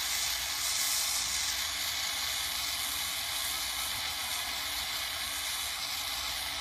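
Jeweler's gas torch flame hissing steadily into a ceramic crucible, heating gold scrap that is partly melted and being drawn together into one piece.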